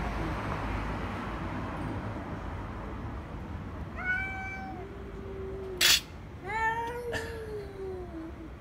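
Cats in a face-off yowling: long, drawn-out yowls begin about four seconds in, with a short, loud hiss just before six seconds. The yowling and hissing are the sound of a standoff between two cats.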